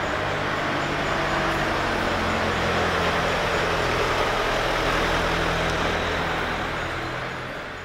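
A car driving past in an underground car park: a steady engine hum and tyre noise that swell slightly about four to five seconds in, then fade out at the end.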